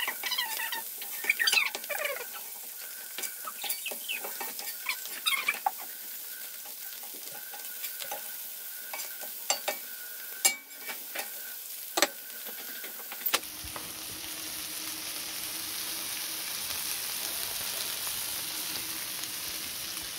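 King George whiting and herring fillets sizzling in butter on a flat-top barbecue hotplate, with a metal spatula scraping and squeaking across the plate for the first few seconds. There are a few sharp clicks of the spatula against the steel around the middle, then a steady sizzle.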